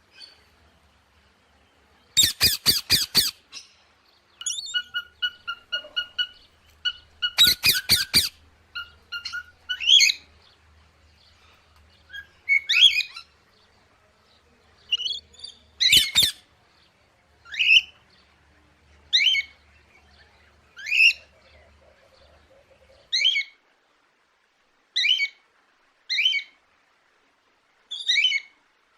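Parrot calls: two quick runs of harsh, rapid squawks early on and about a third of the way in, some short whistled notes, then a string of short rising calls repeated every second or two.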